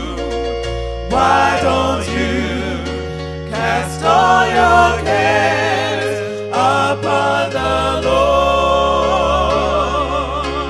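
Gospel music: singing with wide vibrato over sustained low bass notes that change every second or two.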